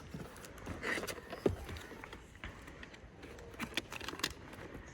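A cardboard box being pried open by hand, its flaps stiff and very tight: scattered rustles and clicks, with one sharp tap about a second and a half in.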